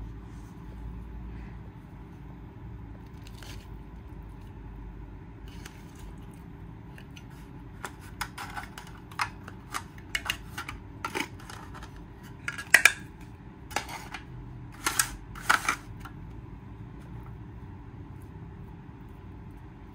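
A run of light, sharp clicks and clinks, a dozen or so spread over about eight seconds and loudest around the middle, over a steady low background rumble.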